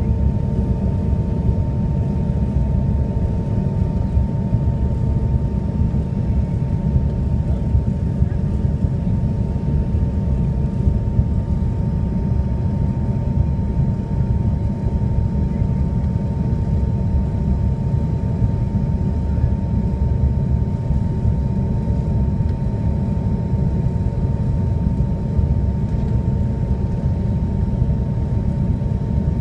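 Steady cabin noise of a Canadair CRJ-200 regional jet in flight: a low rumble of airflow and its two rear-mounted General Electric CF34 turbofans, with a thin steady whine above it.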